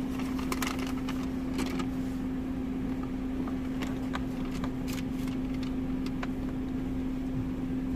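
Steady hum of a parked car running, heard from inside the cabin, with one constant droning note over a low rumble. A few light clicks and rustles of handling come in the first couple of seconds and again around the middle.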